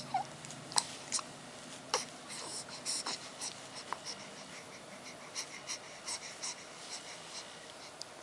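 Scattered light clicks and taps at irregular intervals, as of small toys or objects being handled, with a brief falling squeak right at the start.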